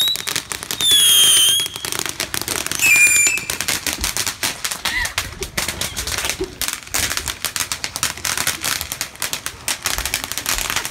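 Ground fireworks going off: two shrill whistles in the first few seconds, then a rapid, dense crackling of small sharp pops.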